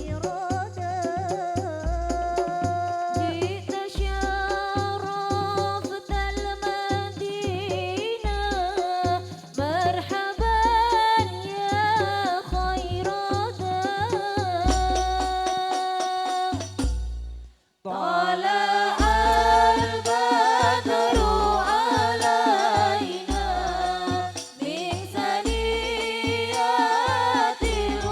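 A wavering, ornamented sung melody over instrumental backing, with a steady low drum beat about every two-thirds of a second. The music cuts out for a moment about two-thirds of the way through, then carries on.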